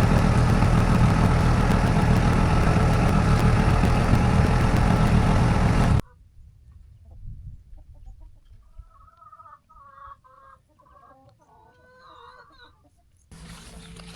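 An engine running steadily for about six seconds, cut off suddenly. Then faint hens clucking on and off for several seconds.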